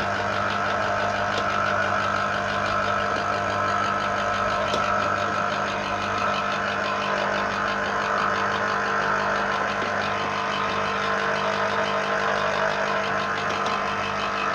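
Small electric citrus juicer running steadily while an orange half is pressed down onto its spinning reamer.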